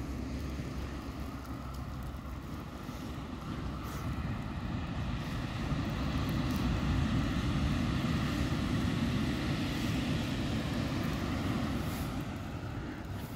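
Steady low rumble of surf and wind, swelling in the middle and easing off near the end, with a faint hum above it.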